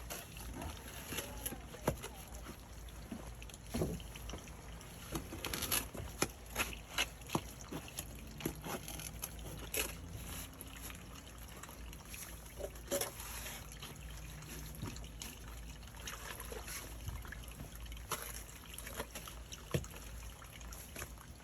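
A shovel scraping and scooping wet mud in a waterlogged hole, with water trickling and sloshing, and irregular knocks and scrapes throughout.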